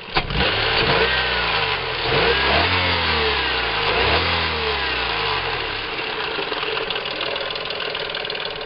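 Nissan Murano's VQ35 V6 engine revved in a run of quick blips, each rising and falling back, then settling to idle. The engine has a heavy knock that the owners fear is about to break a rod out through the block.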